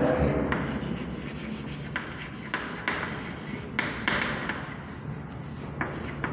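Chalk writing on a chalkboard: a string of short, scratchy strokes and light taps as words are written, with a steady low hum underneath.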